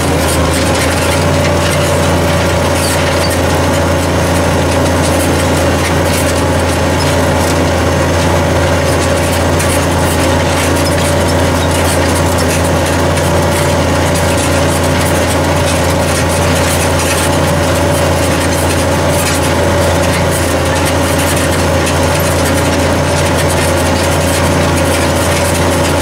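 New Holland TM 175 tractor's six-cylinder diesel engine running steadily under load while pulling a five-furrow plough through the soil, with a constant whine above the low engine note.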